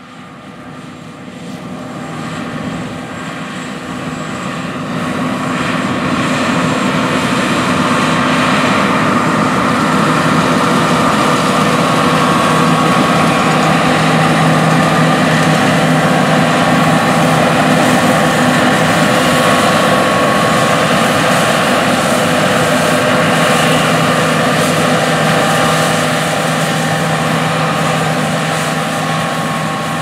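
2018 John Deere S780 combine, its 473 hp diesel engine and threshing machinery running under load while harvesting wheat. The steady mechanical hum grows louder over the first several seconds as the combine comes close, holds, then fades a little near the end as it moves away.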